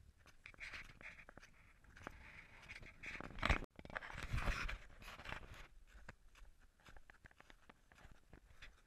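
Crampons crunching and scraping on glacier ice in irregular footsteps. About halfway through there is a louder knock followed by close rubbing and scraping of gloves or clothing against the camera.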